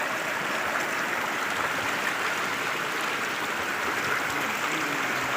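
Steady rushing of flowing water, like a stream or river running.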